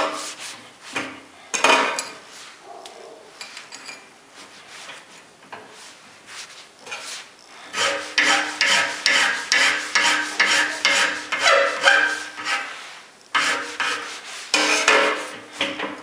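Hand file scraping back and forth on a steel clamp part held in a bench vise, about two strokes a second, with a faint metallic ring. The strokes are sparse and quieter in the first half, run steadily in the second half, and come in one more short run near the end.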